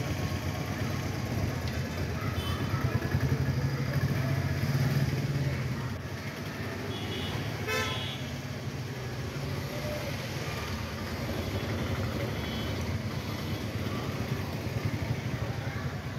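Street traffic: a motor vehicle engine running, louder in the first six seconds, with a brief horn toot about eight seconds in.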